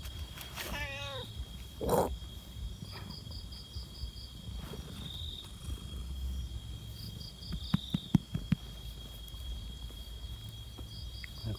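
A cat meows once about a second in, a wavering call that falls in pitch, followed by a short sharp sound about a second later. A low purr runs underneath while the cat is stroked, crickets chirp in short pulsed trills, and there are a few soft knocks near the end.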